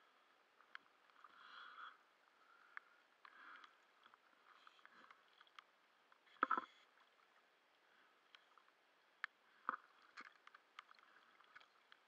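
Faint water lapping and splashing as a diver swims at the lake surface, with scattered small clicks and two louder brief splashes, one about halfway through and one a few seconds later.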